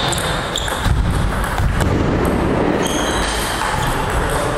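Table tennis ball struck and bouncing a few times in quick clicks near the start, then footsteps on a wooden floor with short high squeaks.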